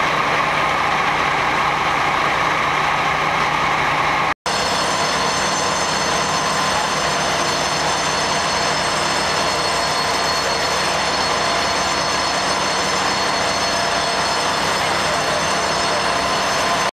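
Fire engine running steadily, a loud continuous mechanical drone with high whining tones over it, broken by a momentary gap about four seconds in.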